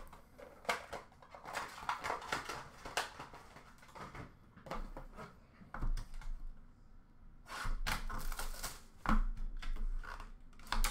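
Hands crumpling wrapping and shuffling card packs in a plastic bin: irregular crinkling and rustling with light clicks and taps, in two busier spells.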